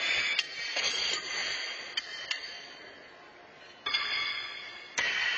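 Pitched horseshoes clanking against steel stakes and landing on the courts: several sharp strikes, each trailing a long echo through a large arena hall.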